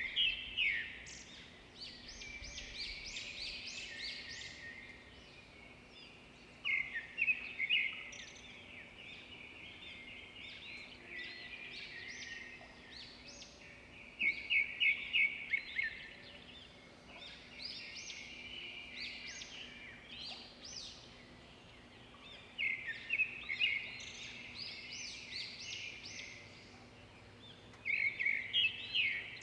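Songbird singing in repeated bursts of rapid chirps and trills, one burst about every six to seven seconds, over a faint steady hum.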